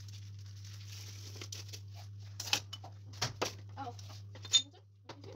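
Plastic bag crinkling and metal tongs clicking as salted fish is lifted out of a plastic tub, over a steady low hum. There are several sharp clicks, the loudest about four and a half seconds in.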